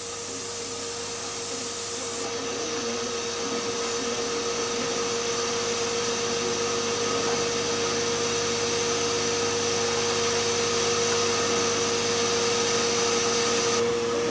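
Wafer-scrubbing machine running: a steady whirring hiss with a constant hum, slowly growing louder.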